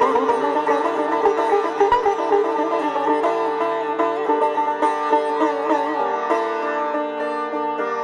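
Sitar playing solo, with notes bent into sliding pitch glides during the first half. From about halfway through it turns to quicker, evenly repeated plucked notes over a steady ringing drone.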